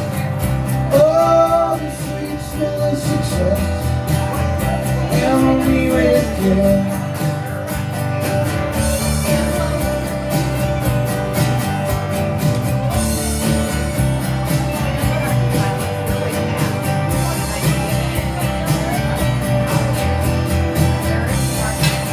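Live band playing a mostly instrumental passage of a country-rock song, with guitar to the fore.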